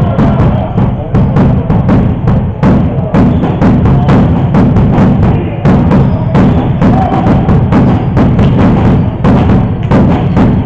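Loud drumming: rapid, irregular drum beats and knocks over a dense low rumble.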